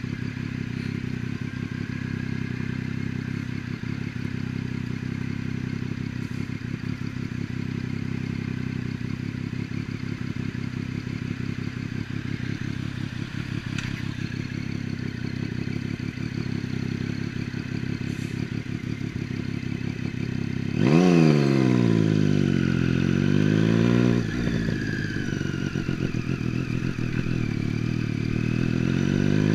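Triumph Street Triple's three-cylinder engine idling steadily, then about twenty seconds in the revs rise sharply and fall, climb again and drop suddenly, and begin rising once more near the end.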